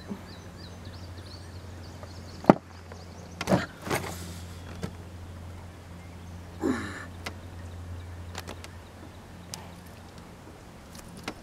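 Scattered knocks and thumps in a canoe as a large channel catfish is grabbed and lifted, the sharpest about two and a half seconds in, over a steady low hum.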